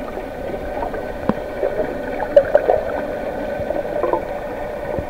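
Muffled underwater sound picked up by a submerged camera: a steady low hum with faint bubbling and scattered light clicks as a swimmer dives nearby.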